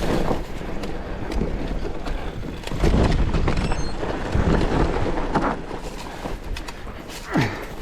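Electric mountain bike riding down a rough trail: tyre rumble and repeated knocks and rattles from the bike over rocks, with wind buffeting the action camera's microphone.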